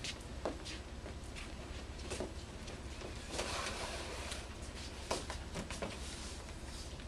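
Footsteps shuffling and scattered light knocks as people move across a hard floor and a folding chair is handled, with a longer rustle about three and a half seconds in.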